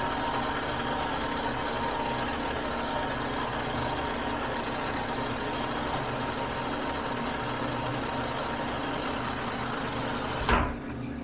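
Metal lathe running steadily while a Scotch-Brite pad is rubbed against the spinning steel axle shaft to polish it. A short knock near the end, after which the running sound is quieter.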